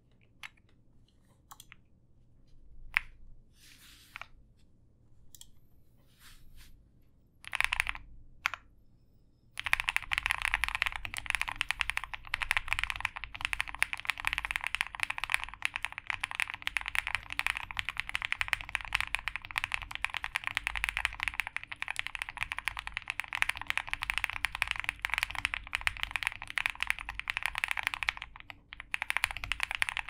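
QK65 aluminium mechanical keyboard with lubed Sunny Side Up linear switches and PBT keycaps: a marbly, poppy clack. Separate key presses and short runs for about the first nine seconds, then fast continuous typing with a brief pause near the end.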